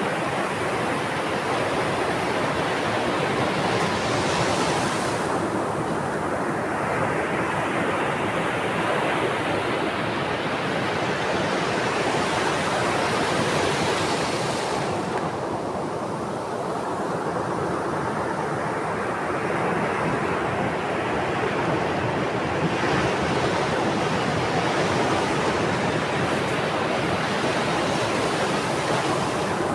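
Ocean surf: a continuous rush of waves, the hiss swelling as each wave breaks and washes in, then falling away, every several seconds.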